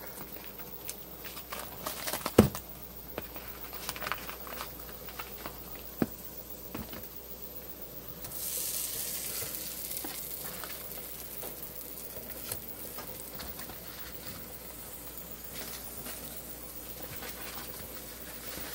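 Crinkles and clicks of the plastic-wrapped sausage tray being handled, with one sharp knock about two seconds in. About eight seconds in, raw sweet Italian sausages go into melted butter in a frying pan and start sizzling steadily.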